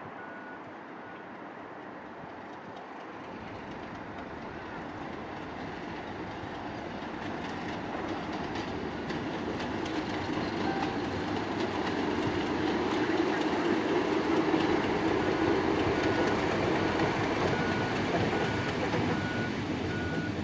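A diesel-hauled train approaching and passing: engine and wheel noise grow steadily louder, peaking about two-thirds of the way through. A faint, evenly repeated high tone sounds at the start and again near the end.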